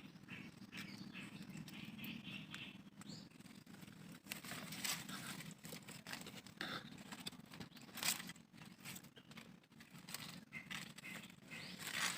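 Faint outdoor ambience under a low steady hum, with scattered small rustles and clicks.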